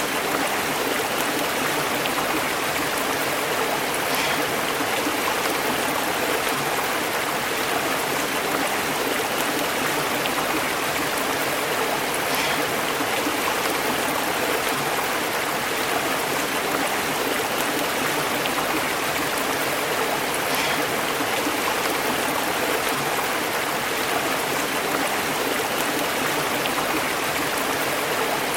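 Shallow stream burbling and bubbling over rocks: a steady, even rush of running water.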